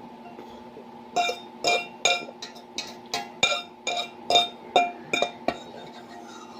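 An eating utensil clinking against a dish about a dozen times in quick, uneven succession, each strike with a short bright ring. Background music plays steadily underneath.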